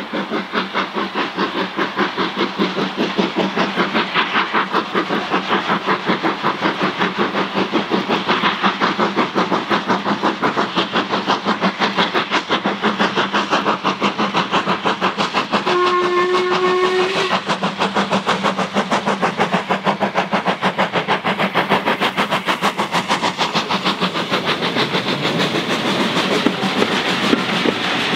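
LMS Jubilee three-cylinder 4-6-0 steam locomotive working hard under load, its exhaust beating in a rapid, even rhythm as it passes. About halfway through it gives one short whistle blast, and near the end the coaches roll past with a clickety-clack.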